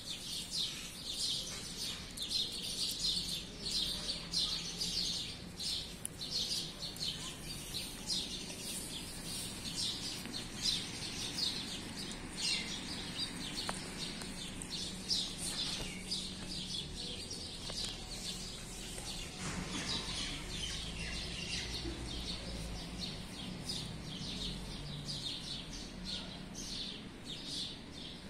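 Many small birds chirping and twittering at once, a dense, unbroken chorus of short high chirps.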